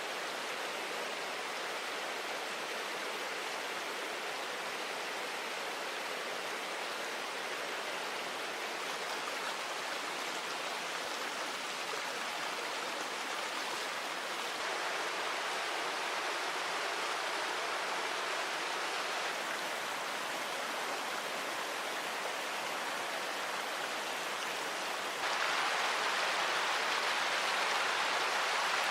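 Steady rush of a river flowing over rocks, an even wash of water noise that gets louder in abrupt steps, most plainly about 25 seconds in.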